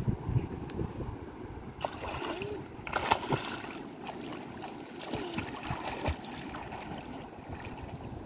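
Sea water splashing irregularly as a child kicks his legs while swimming in the shallows. Wind rumbles on the microphone in the first couple of seconds.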